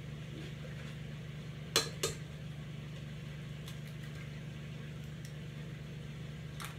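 An egg knocked twice against the rim of a stainless-steel mixing bowl to crack it: two sharp taps about a third of a second apart, about two seconds in, over a steady low hum.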